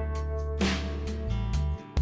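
Background music: a guitar-led track with a steady bass line and drums.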